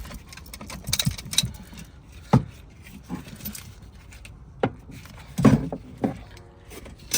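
Scattered clicks and knocks from hands handling the fuel pump assembly and its parts, about one every second, a few of them sharper and louder.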